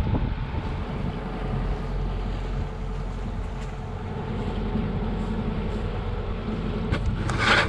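Sailboat motoring: a steady engine drone under water rushing along the hull and wind buffeting the microphone, with a short louder rush near the end.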